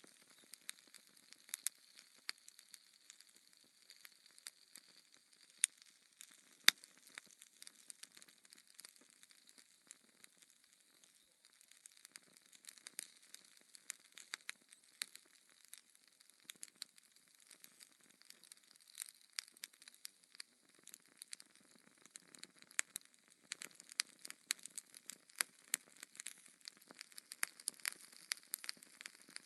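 Wood logs burning in a fireplace, crackling with irregular sharp pops and snaps over a soft hiss. Two pops about six and seven seconds in stand out as the loudest, and the crackling grows denser in the second half.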